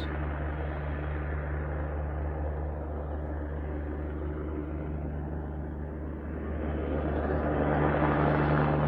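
Helicopter hovering overhead: a steady low drone from its rotor and engine, growing louder about seven seconds in.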